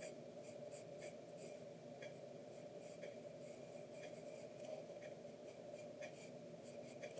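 Pencil scratching on paper in short, irregular strokes while sketching, faint, over a low steady hum.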